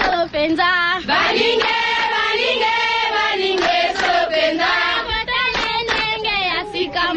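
A recorded tribal-style chant played as a sound drop to end a caller's turn: voices singing together in a wavering chant.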